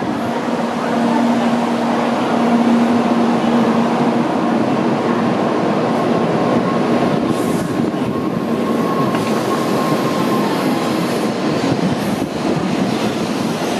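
N700-series Shinkansen pulling out along the platform and gathering speed, its cars rushing past with a steady, loud rumble. A low steady hum sounds for the first few seconds, and a higher steady whine comes in the middle.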